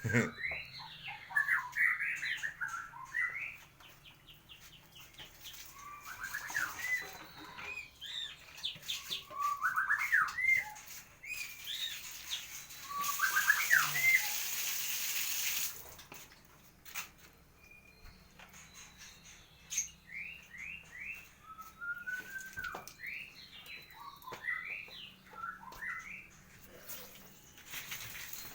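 Captive murai batu (white-rumped shamas) calling in their breeding cages: repeated bursts of short rising and falling whistled notes and quick chirping runs. A few seconds of steady hissing water spray come in the middle.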